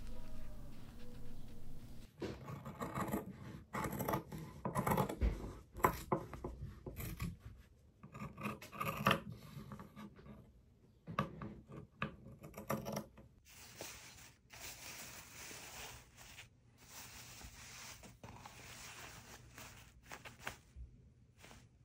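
Scissors cutting fabric, with the cloth rustling and rubbing as it is handled. Irregular runs of rough snipping and rustling start about two seconds in and give way, a little past halfway, to softer, steadier rubbing.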